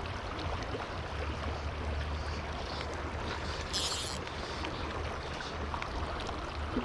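Fraser River water rushing steadily, with a low wind rumble on the microphone. A short hiss comes about four seconds in.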